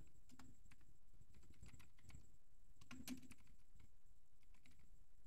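Faint computer keyboard typing: irregular single keystrokes, one a little louder about three seconds in.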